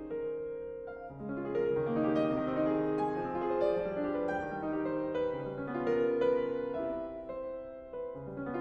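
Solo piano playing a classical piece, with notes and chords ringing over one another.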